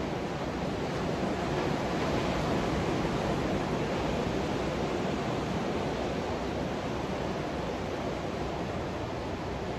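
Ocean surf breaking on a sandy beach: a steady, even wash of waves, swelling slightly about two seconds in.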